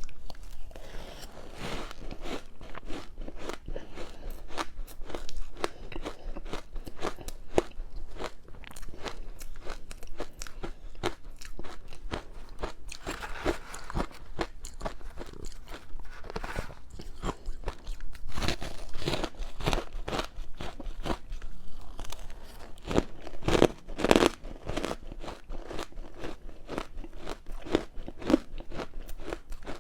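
Close-miked crunching and chewing of frozen matcha powdered ice: a dense run of crisp crackles, with a few heavier bites about two-thirds of the way through.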